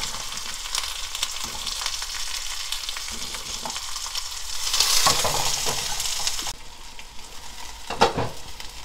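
Pot of beef-bone broth boiling, a steady bubbling hiss, as sliced rice cakes are dropped in by hand with small splashes. The boiling turns quieter about two-thirds through, and a single sharp knock comes near the end.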